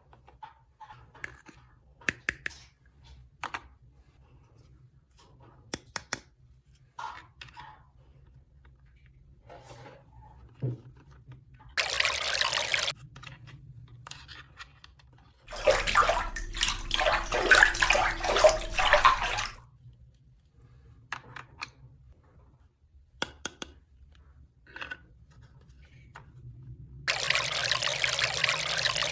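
Small hard plastic clicks and knocks, then water running in spells: about a second near 12 s, a louder stretch of about four seconds from around 15 s, and again steadily from near the end.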